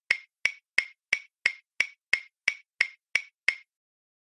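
Clock ticking: a run of eleven identical crisp ticks, about three a second, that stops about three and a half seconds in.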